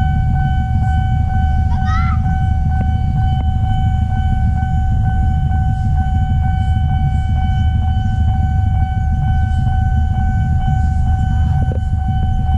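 Steady electronic warning tone of a railway level-crossing alarm sounding without a break, over a loud low rumble. A short rising chirp cuts in about two seconds in.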